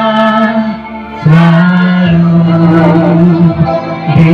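A slow Indonesian song in praise of teachers, sung over instrumental accompaniment. A long held note fades about a second in, and the next sung line begins a moment later.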